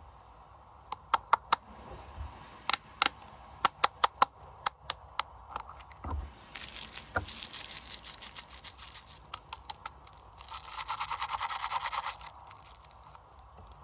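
Plastic snack packaging being handled and opened: a run of sharp crinkles and clicks, then a denser rustling, and near the end a loud, rapid ripping of about a second and a half as a wrapper is torn.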